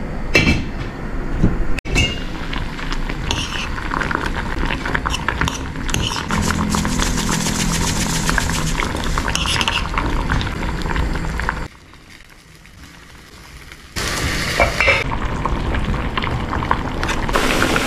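Broth boiling in a stainless steel pan, with clinks of the metal lid and of a spoon stirring against the pan; it drops much quieter for about two seconds a little past the middle.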